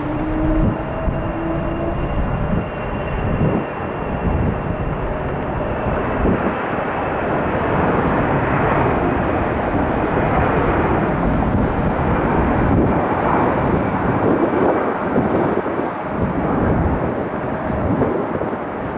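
Airbus A321-200 jet engines running at takeoff power, a steady noise with a faint whine that swells in the middle, mixed with wind buffeting the microphone.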